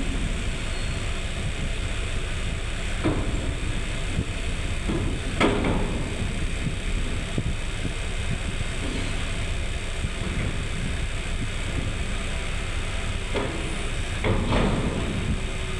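Steady low rumble of idling diesel engines, with loud metal clanks and bangs as a side lifter takes an empty shipping container off a truck trailer: two in the first six seconds and two more near the end.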